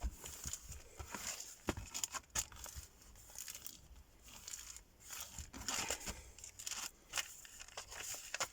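Paper bag journal pages being handled and folded, rustling and crinkling with irregular crackles.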